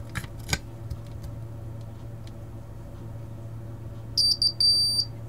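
Small circuit-board buzzer powered from a bench supply at about 3.5 volts, sounding a high-pitched beep in a few short uneven pulses near the end. A couple of clicks from the test leads touching the board come in the first second, and a low steady hum runs underneath.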